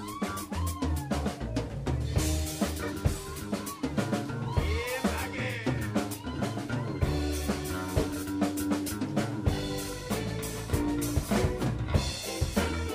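Live funk band playing an instrumental passage, the drum kit to the fore with snare, rimshot and bass drum hits over electric bass, with held and bending melodic notes from the horns and guitar on top.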